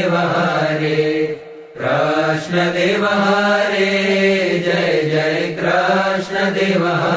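Swaminarayan devotional chanting: voices singing a mantra in long, held phrases, with a short break about a second and a half in.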